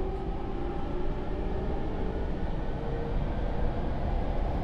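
JR East E231 series 800-subseries commuter train running, heard inside a motor car: a steady rumble of wheels on rail with a faint whine from the Mitsubishi IGBT inverter-driven traction motors, which fades out about three seconds in.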